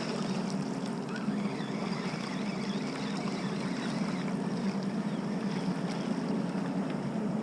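Steady low drone of a large ship passing on the river, with wind and water noise.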